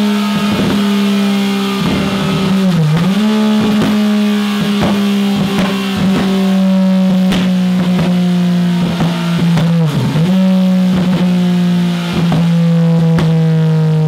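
Yamaha XSR900 three-cylinder engine running at high, steady revs on a dyno through a Scorpion Serket Parallel full-system exhaust, the revs dipping briefly and coming back twice. Background music plays over it.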